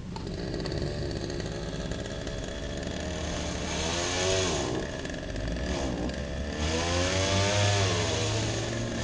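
Chainsaw engine running and being revved, its pitch rising and falling twice.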